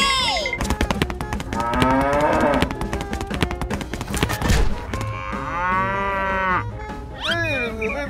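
Cow mooing, three moos: one tailing off at the start, one about two seconds in, and a longer one past the middle. Rapid runs of sharp clicks fill the gaps between the moos.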